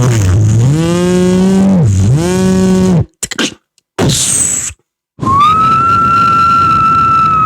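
Beatboxer's mouth-made sound effects: a low, droning voiced sound that swoops down in pitch twice, a short breathy hiss, then a steady high whistle-like tone held for about two seconds that drops off at the end.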